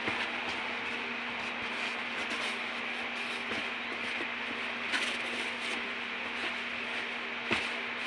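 Tissue paper rustling and crinkling as hands dig through the packing in a cardboard box, over a steady background hum, with a few light knocks, the loudest near the end.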